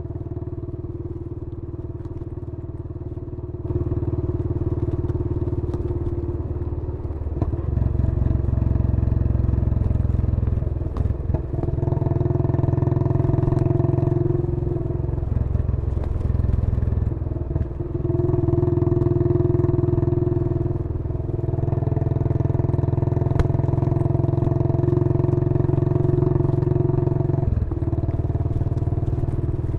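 Royal Enfield Bullet 500's single-cylinder four-stroke engine running. It gets louder about four seconds in, then its note rises and dips several times.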